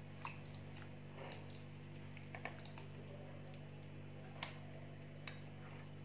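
A hand rubbing a thick marinade over raw chicken pieces in a baking tray: faint wet squishes and sticky clicks, scattered through, over a steady low hum.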